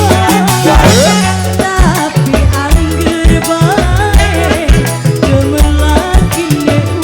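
Live dangdut music: a melody line bending up and down in pitch over a steady, busy drum beat and deep bass notes.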